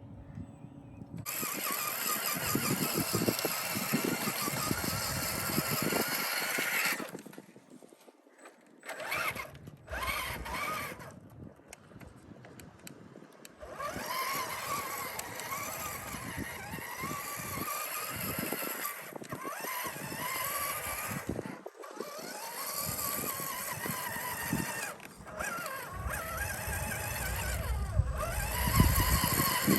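RC scale crawler truck's electric motor and gear drive whining, the pitch rising and falling with the throttle, in several runs with short pauses between them.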